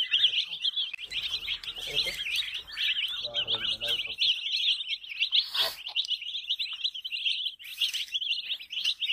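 A brood of baby chicks peeping nonstop, many rapid high chirps overlapping into a dense chorus.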